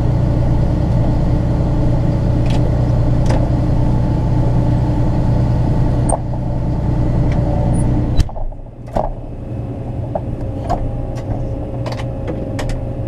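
A vehicle engine running steadily, heard from inside the cab. About eight seconds in, the sound drops abruptly after a sharp click, leaving a quieter hum with scattered small clicks and knocks.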